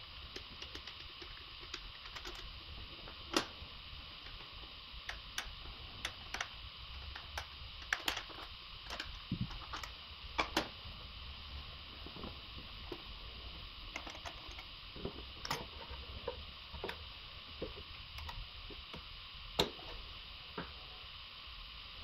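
Irregular light clicks and taps, a few of them sharper, of plastic and metal intake pipe parts being unclipped and lifted off an Audi 3.0 TDI V6 diesel engine by hand, over a steady faint hiss.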